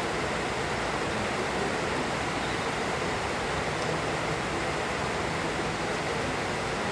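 Moderate rain falling steadily, a dense, even hiss.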